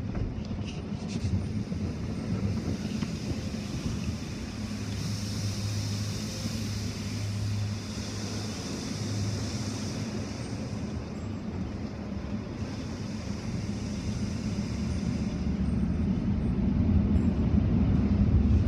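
Automatic car-wash machinery and water spray, heard muffled through the car body from inside the cabin: a steady rumble and hum with a hiss of spraying water. It gets louder over the last few seconds.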